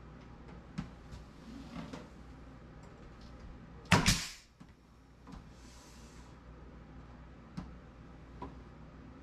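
Wooden sliding barn door being handled on its rail: a loud double knock about four seconds in, with a few light clicks and taps before and after.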